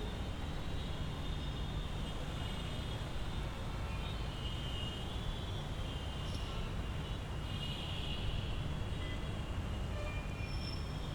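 Street ambience: a steady low traffic rumble under a general hiss, with faint thin high tones that come and go.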